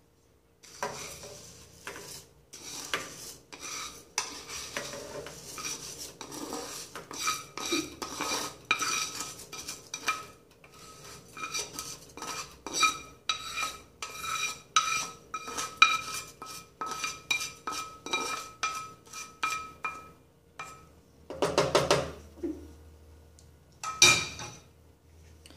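Toasted rice being scraped and tapped out of a frying pan into a pot: rapid, uneven scrapes and knocks of a utensil on the pan, with a ringing tone from the pan, for about twenty seconds. Two louder clatters of cookware follow near the end.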